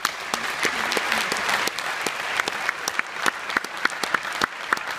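Large audience applauding: a dense patter of many hands with single sharp claps standing out, thinning toward the end.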